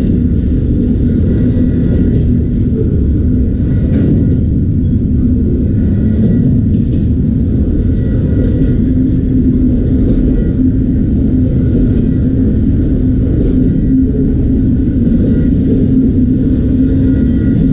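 Autorack freight cars rolling past, a steady heavy rumble of steel wheels on the rails with a faint high ringing from the wheels.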